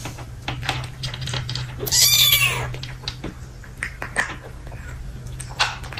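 A kitten meows once, loudly, about two seconds in, over the rapid small clicks of a cat crunching dry kibble from a bowl and a steady low hum.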